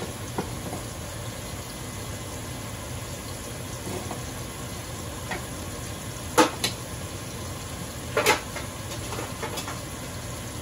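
Potato cubes deep-frying in a saucepan of oil, a steady low sizzle. A few sharp metal clinks of the wire skimmer basket against the pan, the loudest about six and a half and eight seconds in.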